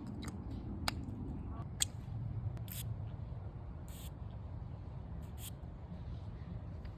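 Three short hissing puffs from a cologne atomizer spray bottle, spaced over a few seconds, with a couple of light clicks before them and a low steady hum underneath.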